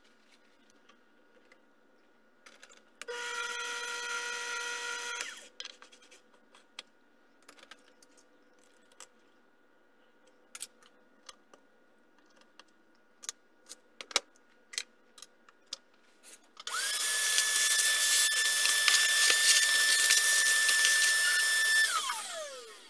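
Miniature metal lathe's motor running: a short run with a steady whine, then scattered metal clicks and taps as a three-jaw chuck is handled on the spindle, then a longer, louder run at a steady whine that falls in pitch and fades as the spindle coasts to a stop near the end.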